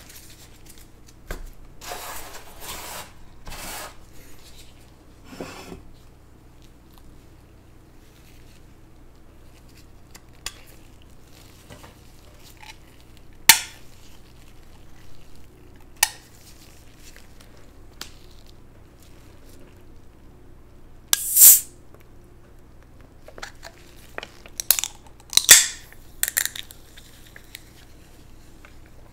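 Dishes and utensils being handled in a small room while food is prepared: scattered clinks, taps and brief scrapes at irregular intervals, a few of them sharper and louder.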